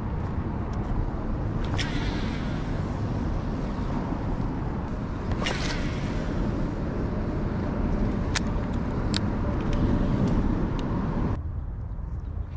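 Steady low rumble of wind on the microphone, with a few sharp clicks and a swish about halfway through as a baitcasting rod is cast. The rumble drops suddenly near the end.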